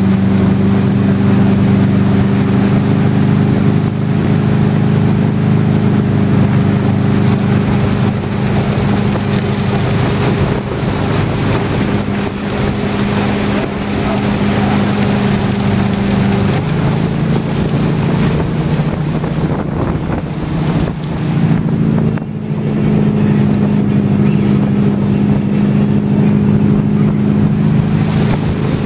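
Tow boat's engine running steadily at speed, with the rush of water and wind noise on the microphone; the engine note shifts a little about halfway through.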